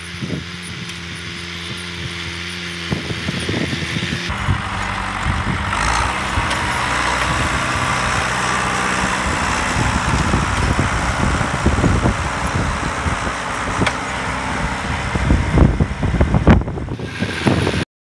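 John Deere 245 compact tractor's three-cylinder diesel engine running while its front loader pushes snow. The sound is steady at first, then louder and rougher from about four seconds in with irregular low thumps, and cuts off abruptly near the end.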